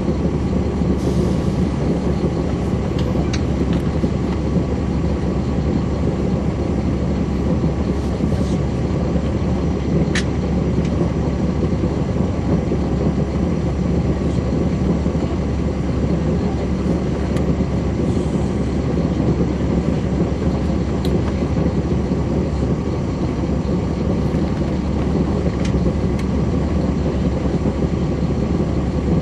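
Caterpillar C13 ACERT diesel engine of a 2009 NABI 416.15 (40-SFW) transit bus running steadily, heard from the floor at the back of the bus.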